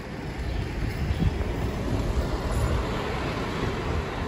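Riding a motorcycle: a low, uneven rumble of vehicle and road noise.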